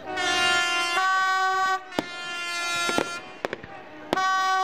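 Three long horn blasts, each a steady chord of several notes, with the sharp bangs of fireworks bursting between them.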